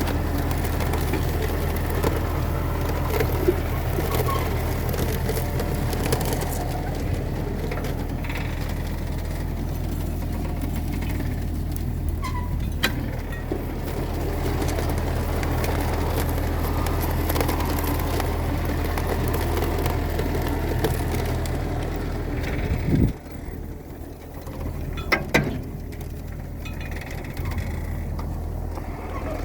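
Tractor engine running steadily with a low hum. About 23 seconds in, the hum drops away sharply, and a couple of short knocks follow soon after.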